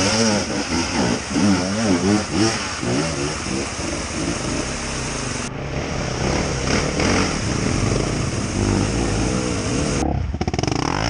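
Off-road vehicle engine revving hard, its pitch swinging up and down again and again as it works to climb a slippery waterfall, then running more steadily.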